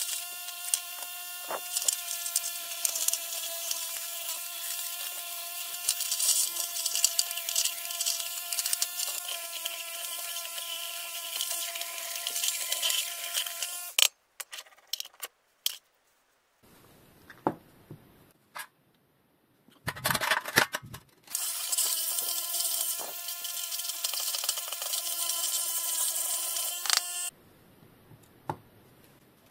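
A small electric motor in a power tool runs with a steady high buzz, then stops about halfway through. A few clicks and a short rustle fill the pause, and the motor runs again for about six seconds before stopping near the end.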